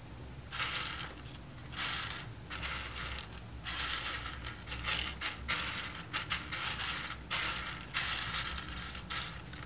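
Sunflower seeds in their shells being scooped and stirred by hand on a wooden tabletop. They make a dry, rattling clatter that comes in irregular bursts, about one a second.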